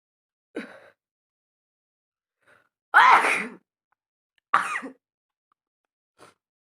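A woman with a heavy cold coughing and sneezing: three short explosive bursts, the loudest about three seconds in, with a faint one near the end.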